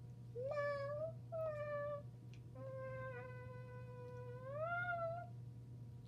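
A child's voice meowing like a cat three times, as if for a toy kitten: two short meows, then a long meow held level that rises near its end.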